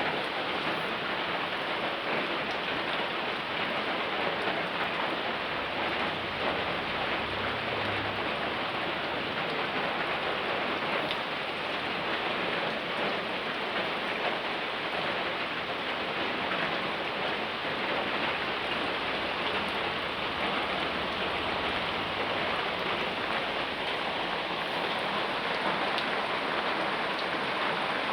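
Steady rain falling on a surface: a dense, even hiss of many drops.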